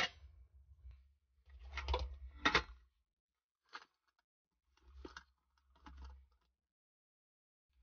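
Several separate knocks and clicks, like objects being handled and set down, the loudest right at the start and another about two and a half seconds in, with low bumps under some of them and dead silence between.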